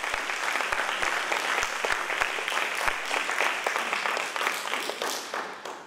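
Audience applauding, with dense clapping that dies away near the end.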